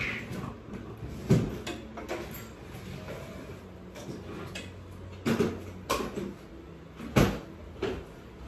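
About five sharp knocks and clanks on a metal stepladder as a person steps down its rungs and handles the top.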